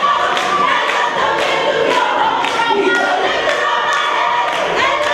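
Teenage gospel choir singing together over a steady beat of about two strokes a second.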